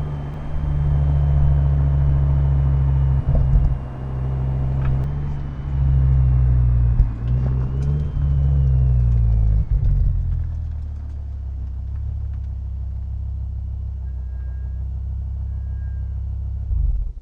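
BMW M6 E63's S85 5.0-litre V10 running at low, fairly steady revs, heard onboard; about eight seconds in the revs fall and hold at a lower, quieter note. The sound cuts off suddenly at the end.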